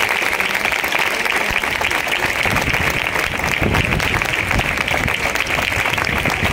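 Large crowd applauding steadily, a dense even patter of many hands clapping.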